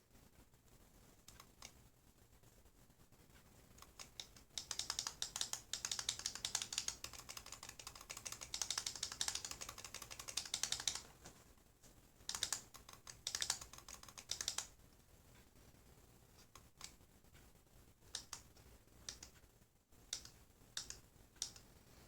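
Typing on a laptop keyboard: a long run of quick key clicks, then a couple of shorter bursts and scattered single keystrokes.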